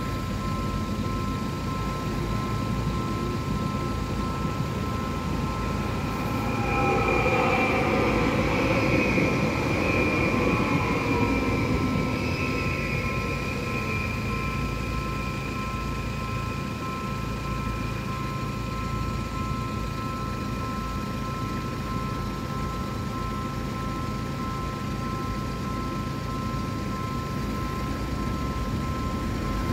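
Stadler FLIRT electric multiple unit train passing on the rails, with a rumble and a high whine that swell from about 6 to 13 seconds in, then fade. A steady high two-note tone from the level crossing's warning signal runs throughout.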